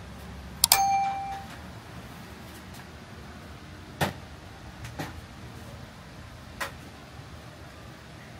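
A single sharp metallic ding less than a second in, ringing briefly like a small bell, then three short knocks or clicks spread over the following seconds, over a steady low background hum.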